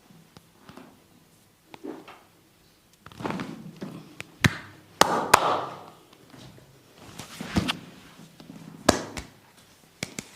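Hand massage on bare, oiled skin: several sharp smacks of hands striking the body, with rubbing and swishing of hands on skin between them.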